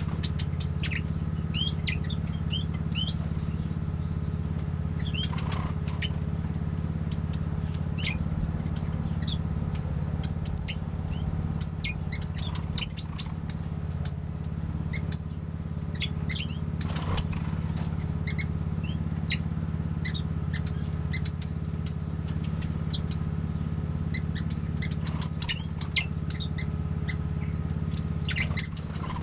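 Small aviary birds, finches and waxbills, giving short high chirps in scattered clusters over a steady low hum.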